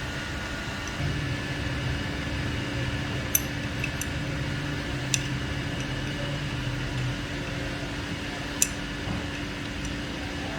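Steady mechanical hum, like a fan running, with four sharp clicks or clinks spread through it.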